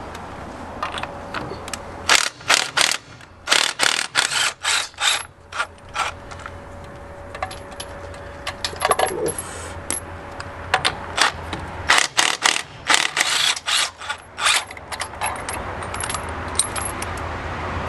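Ryobi XIW-3100 18 V cordless impact wrench hammering in short, rapid bursts as it spins wheel nuts loose, in two spells of clattering, about two seconds in and again about twelve seconds in.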